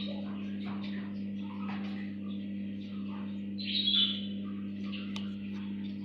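Short, high chirps and squeaks repeated irregularly from a week-old puter pelung dove chick, loudest about four seconds in, over a steady low electrical hum.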